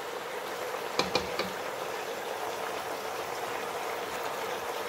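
Pork and vegetable stir-fry sizzling steadily in a stainless steel pot, with a few quick knocks of a wooden spoon against the pot about a second in.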